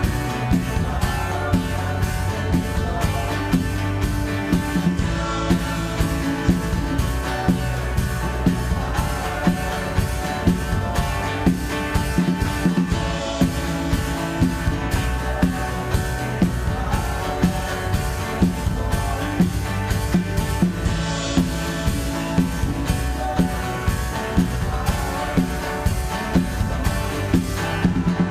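Worship band music with a drum kit keeping a steady beat.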